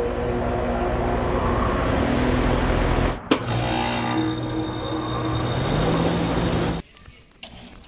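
HVAC equipment running: a loud, steady mechanical hum with a few held tones. It breaks off abruptly with a click about three seconds in and resumes with a different pitch. It then drops suddenly to a much quieter sound near the end.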